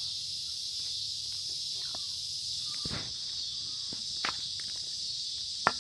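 Steady high-pitched drone of an outdoor insect chorus, with a few scattered clicks and taps.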